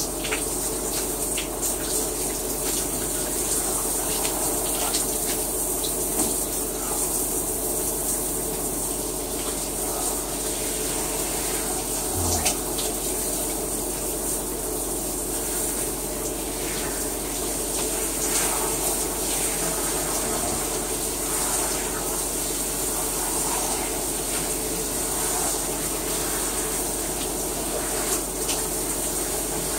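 Shower running: a steady spray of water falling and splashing.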